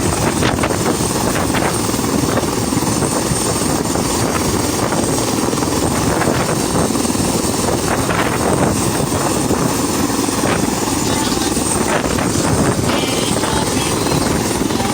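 Loud, steady aircraft noise: an engine and rotor running without a break.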